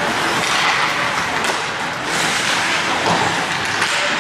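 Ice hockey game noise in an indoor rink: a steady hiss of skate blades carving and scraping the ice, with a few faint clicks.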